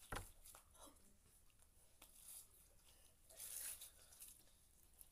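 Faint squishing and crackling of a heavy glitter slime being handled, with scattered soft clicks and a brief hissy rustle about three and a half seconds in.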